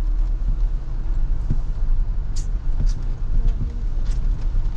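Toyota Innova Crysta driving: a steady low rumble of engine and road noise, with a few short sharp ticks.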